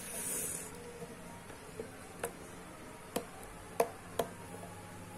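Handling an action camera's packaging: a brief rustle, then about five sharp, light clicks and taps of hard items, the loudest a little under four seconds in.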